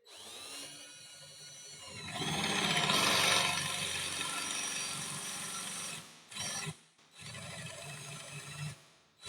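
Electric drill with a Forstner bit spinning up and boring a concealed-hinge cup hole into a wooden cabinet door. It is loudest as the bit bites about two seconds in and stops about six seconds in, then gives a short burst and a second run of drilling near the end.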